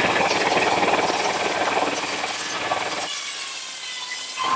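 Antique tractor engine running with a fast, even beat, which drops away about three seconds in.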